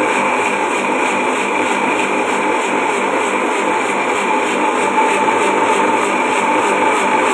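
Electric mixer grinder running steadily at speed, its stainless steel jar blending coriander leaves with water into juice: a loud, even motor whine over the churning of the liquid.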